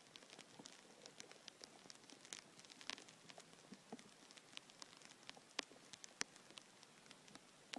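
Near silence, with faint, scattered clicks and ticks at irregular intervals.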